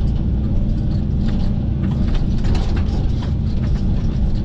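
Kobelco SK135SR-7 excavator's diesel engine running steadily under load, heard from inside the closed cab, with scattered knocks and cracks through the middle as the ripper tooth drags through tree roots.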